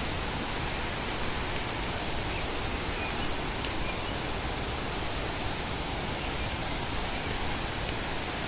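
Fast-flowing stream or waterfall rushing steadily and powerfully.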